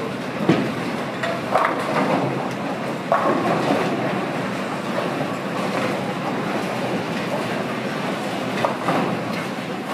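Bowling alley din: bowling balls rolling down wooden lanes and pins clattering across the house, a steady rumble with scattered sharp knocks. A louder crash about three seconds in, after the ball seen rolling down the lane.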